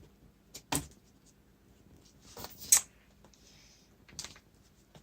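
Fingers picking and scratching at adhesive tape on a laptop's display cable connector and peeling it off, with a few sharp clicks and a louder scratch about three seconds in, then a short high hiss of tape coming away.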